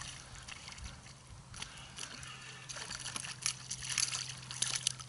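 Water sloshing and splashing at the side of a boat as a hooked pike is brought in, with a run of short, sharp splashes and knocks in the second half. A steady low hum starts about a second in and runs underneath.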